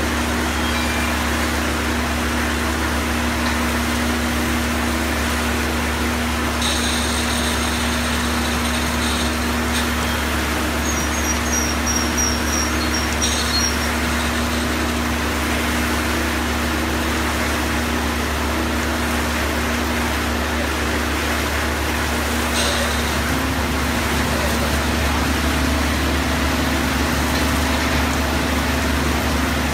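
Engine of a delivery truck powering its boom, running steadily as a loud, even drone with a low hum. A few brief higher hissing bursts come over it.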